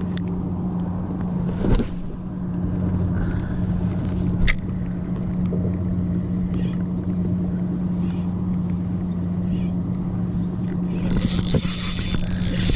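A steady, low engine hum runs throughout, most likely a motorboat's engine. Two short clicks come in the first half. Near the end a loud burst of hiss cuts in.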